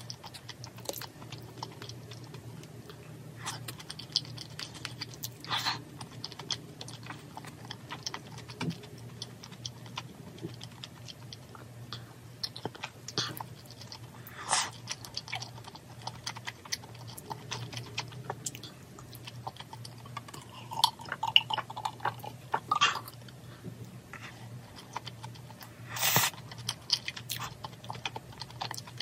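A person eating braised chicken and glass noodles: chewing, with many light clicks of utensils against a dish and a few louder clacks, over a low steady hum.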